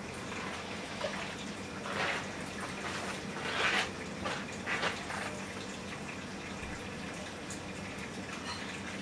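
Aquarium water bubbling and trickling steadily from a stream of air bubbles, over a low steady hum. A few louder splashy swells come between about two and five seconds in.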